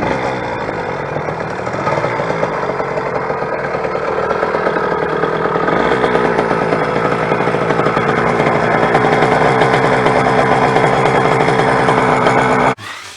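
YD100 two-stroke motorized-bicycle engine running with a fast, even putter, getting louder over the first several seconds, then cutting off abruptly near the end.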